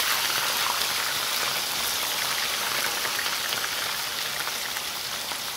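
Potato strips deep-frying in hot oil in a pan: a steady, dense sizzle full of fine crackles, easing off a little toward the end.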